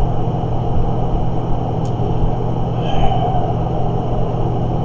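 A steady low hum over a rumbling background noise, with no speech.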